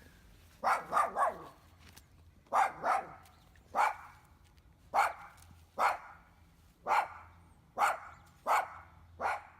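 A dog barking repeatedly, about a dozen short, sharp barks coming roughly once a second, some in quick pairs and a triple near the start.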